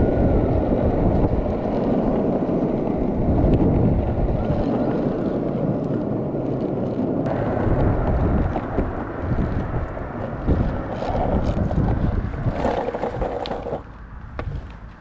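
Skateboard wheels rolling over street pavement: a steady, loud rumble, with wind on the microphone. The rumble drops away sharply near the end.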